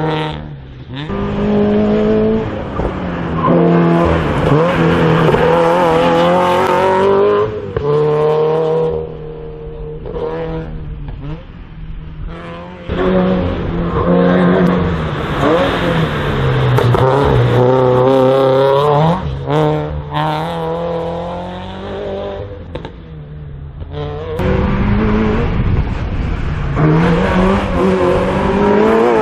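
Race car engine being driven hard through a slalom: it accelerates and lifts off about half a dozen times, its pitch climbing with each surge and dropping at each lift or gear change.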